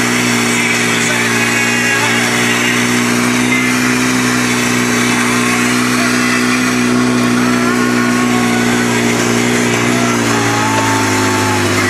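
Side-by-side UTV's engine running at a steady pitch while climbing a dirt trail, the pitch dipping slightly near the end.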